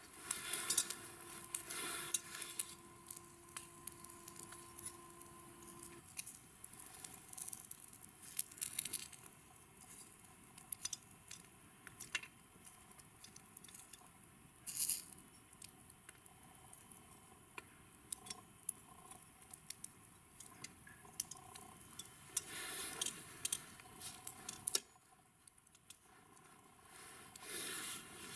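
Glowing charcoal crackling and a skewered slab of beef sizzling as it roasts over the coals, with scattered sharp pops and a few louder hissing bursts.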